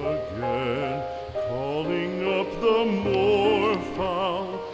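Operatic-style background music with long held notes and a wide vibrato.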